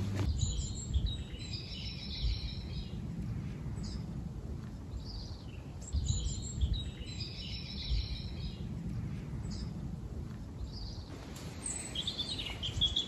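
Songbirds singing over a low steady rumble. A warbling phrase comes about half a second in and again about six seconds in, and a run of quicker chirps follows near the end.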